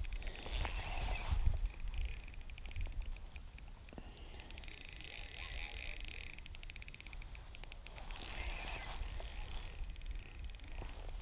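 Spinning reel clicking rapidly while a big carp is played on light tackle, in two stretches: through the first four seconds or so, and again from about eight seconds in until near the end.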